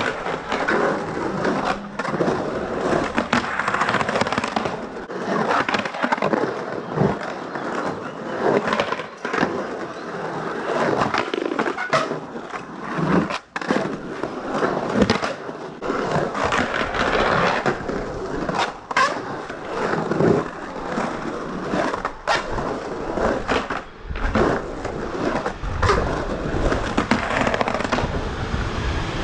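Skateboard wheels rolling and carving around a concrete bowl, with repeated sharp clacks and knocks of the board and trucks on the concrete.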